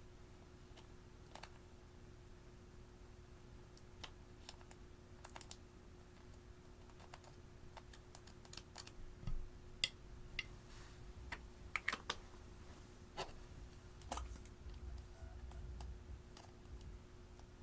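Slime being handled by hand, giving scattered small clicks and crackles that come sparsely at first and grow busier about halfway through.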